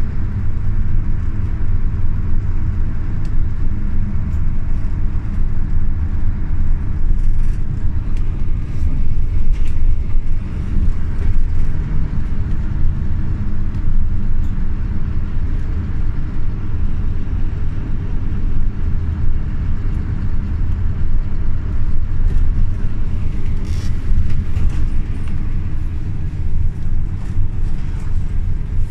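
Scania OmniLink CK270UB city bus running along the road, heard from inside the passenger cabin: a steady diesel engine and drive rumble.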